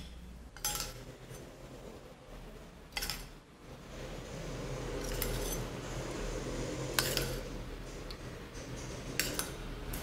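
A steel spoon clinking lightly against a glass bowl, about five separate clinks spread out, with soft handling noise between them.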